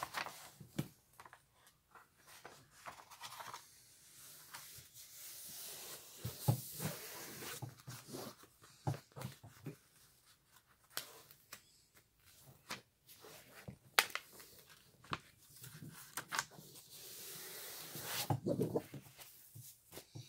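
Paper and the protective cover sheets of diamond-painting canvases being handled, rustling and crinkling in two longer spells, with many small clicks and taps in between.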